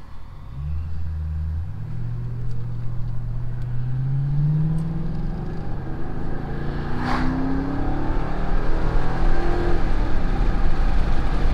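Mercury Grand Marquis 4.6-litre V8 with a new cat-back dual exhaust and AP Xlerator mufflers, accelerating hard from inside the cabin. The engine note climbs in pitch and gets louder as the car picks up speed, and road noise builds toward the end. The exhaust note is very subtle over the cabin and road noise.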